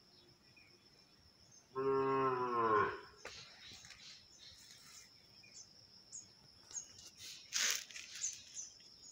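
A single low, drawn-out animal call about a second long, steady in pitch and rising at its end, over a steady high-pitched whine, with a few short high chirps in the later part.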